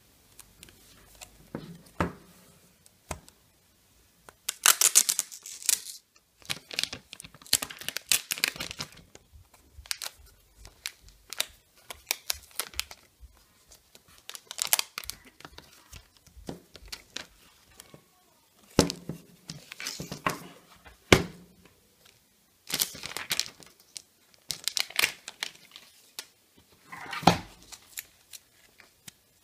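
Plastic packaging being handled and pulled off an Apple USB SuperDrive: repeated crinkling, tearing rustles about a second each, with a few sharp knocks in between.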